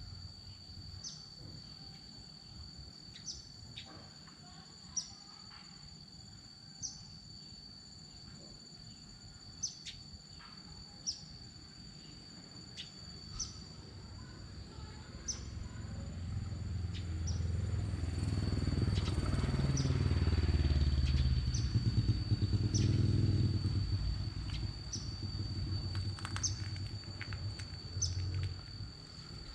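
Outdoor insect and bird ambience: a steady high-pitched insect trill with short chirps every second or two. A motor vehicle passes partway through, its low engine sound swelling to a peak and fading away.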